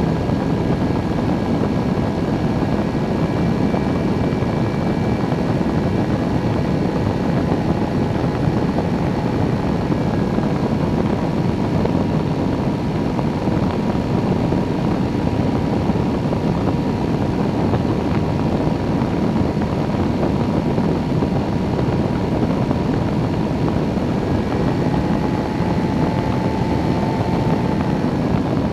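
Weight-shift microlight trike in cruise flight: its engine and pusher propeller drone steadily, mixed with a constant rush of air past the wing-mounted camera.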